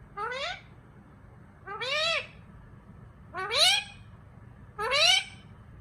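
Parrot mimicking a cat's meow: four rising, meow-like calls, each about half a second long and spaced about a second and a half apart.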